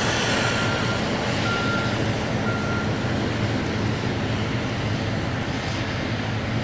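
Heavy diesel demolition machinery running steadily, with a backup alarm beeping about three times in the first few seconds.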